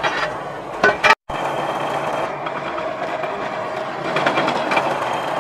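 Pillar drill running, its bit cutting through a steel sheet with a steady whir. A couple of sharp clanks about a second in, and the sound cuts out for an instant just after.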